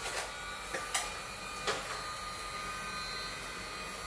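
Handheld heat gun blowing steadily with a faint whine, heating vinyl wrap film to work out air bubbles. Three short clicks come in the first two seconds.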